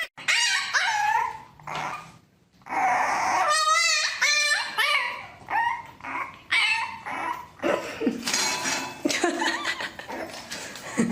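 A dog whimpering and yipping: a string of short, high, wavering whines and yelps, with a brief pause about two seconds in.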